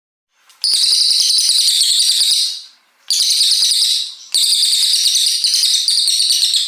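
Brown cililin songbird (cililin coklat) singing long, rapid, high-pitched volleys of notes: three runs of song, the first beginning about half a second in and lasting about two seconds, a shorter one around the three-second mark, and a longer one to the end.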